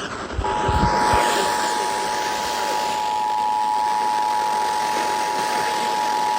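Emergency Alert System attention signal: the steady dual-tone alert (853 and 960 Hz together) on an FM radio broadcast, starting about half a second in, with hiss underneath. It announces the emergency alert message that follows.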